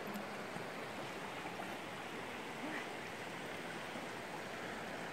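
Fast-flowing mountain river rushing over its stony bed: a steady, even rush of water.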